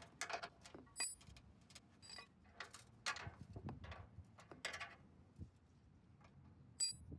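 Wrench clicking and clinking on a 9/16-inch hex bolt as it is tightened into the snowblower's steel frame: a run of short, irregular metallic clicks through the first five seconds, then a pause and one sharp clink near the end.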